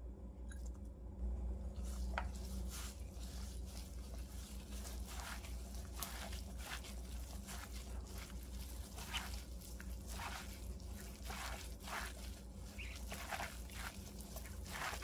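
A gloved hand kneading and tossing doenjang-seasoned chwinamul greens in a glass bowl: soft, wet squishing and rustling strokes, irregular, about one or two a second, starting about a second in. A faint steady low hum runs underneath.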